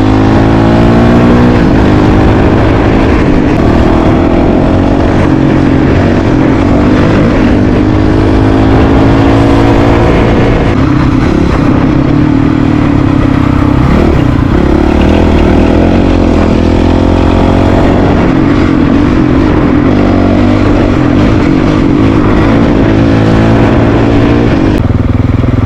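Honda CRF450RL's single-cylinder four-stroke engine under way on a dirt trail, its revs rising in several sweeps through the gears in the first ten seconds, then running steadier.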